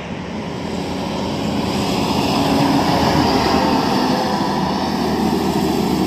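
Traffic on a highway: a bus and trucks approaching, a steady rush of engine and tyre noise that swells over the first few seconds and eases slightly near the end.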